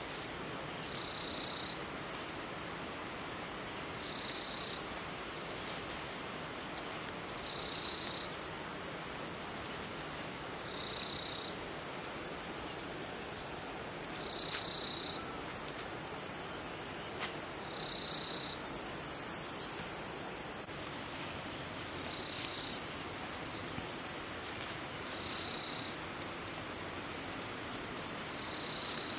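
Insects, such as crickets or cicadas, making a steady high-pitched drone that swells and drops slightly in pitch about every three to four seconds.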